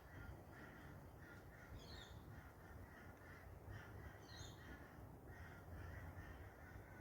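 Near silence with faint bird calls in the background: a run of short repeated calls, and a brief higher chirp about two seconds in and again past four seconds.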